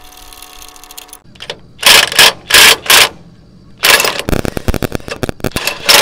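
Impact wrench with a 3/4-inch socket run in four short bursts, then about two seconds of rapid hammering as it tightens the set screw on a sawmill jack stand.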